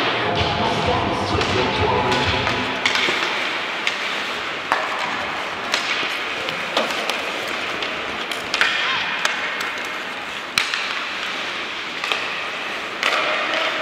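Ice hockey game on the ice: sharp knocks and clacks of sticks and puck, one every second or two, over steady rink noise and indistinct voices.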